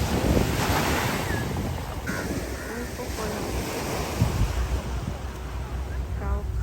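Sea waves washing onto the shore, with a louder surge in the first second or so, and wind buffeting the microphone with a low rumble.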